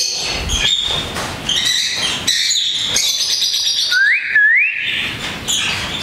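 Many parrots chirping and chattering together in a breeding room of ringnecks, lovebirds and budgerigars, with two quick rising whistles a little after four seconds in.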